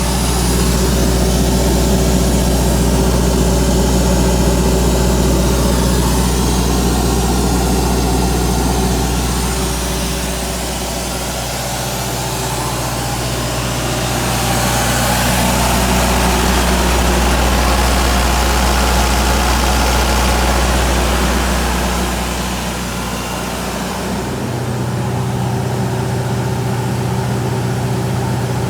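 Deutz diesel engine of an Atlas Copco XAS 137 mobile screw compressor running steadily. Near the end its note changes: the deep rumble falls away and a higher hum takes over.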